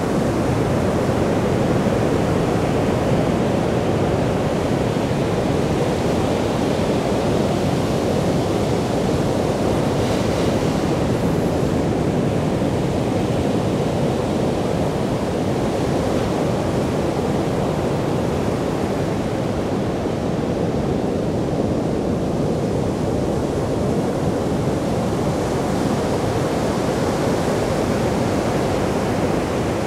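Ocean surf breaking and washing up a sandy beach, a steady, dense rush of water noise with no clear gaps between waves.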